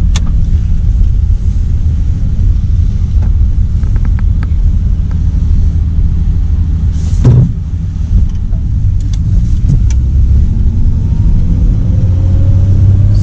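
Inside the cabin of a 1950 DeSoto Deluxe sedan on the move: a steady low rumble from its flathead straight-six engine and the road. There is a thump about seven seconds in, and the engine note rises near the end as the car picks up speed.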